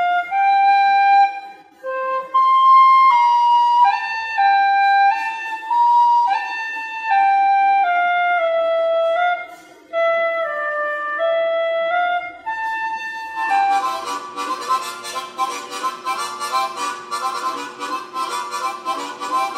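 A small end-blown flute playing a simple melody of held single notes stepping up and down. About thirteen seconds in it gives way to a harmonica playing fast, rhythmic chugging chords.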